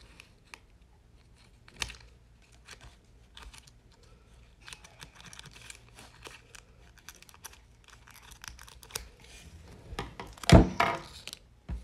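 Scissors snipping through the crinkly plastic wrapper of a modelling clay pack: many short sharp snips and crackles of the wrapper. A little after ten seconds in there is a louder thump and rustle of handling.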